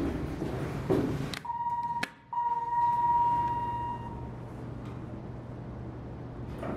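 Dover elevator car's electronic beeper sounding one steady high tone for about two and a half seconds, broken by a click about two seconds in, while the car stands open at a floor. A low steady hum follows the beep.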